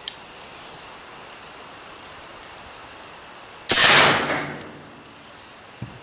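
AirForce Texan .457-calibre pre-charged pneumatic air rifle firing one shot about two-thirds of the way in: a sharp crack whose tail dies away over about a second. A short low thump follows near the end.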